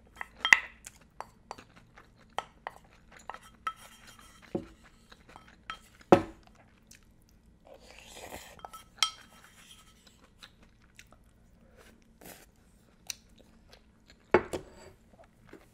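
Close-up eating sounds: a spoon clicking and knocking against a hot pot and bowl many times, the loudest knocks about half a second, six seconds and fourteen seconds in, with chewing, and a sip of broth from the spoon around eight seconds in.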